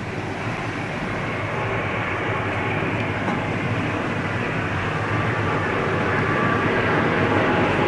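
An Airbus A340's four jet engines on landing approach: a steady roar with a faint high whine, growing slowly louder as the airliner nears.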